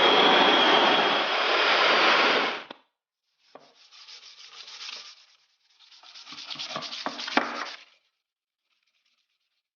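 Power grinder running with a steady high whine, cutting off near three seconds in; then two short spells of abrasive rubbing, like sanding, with a few clicks, as the hatchet is finished.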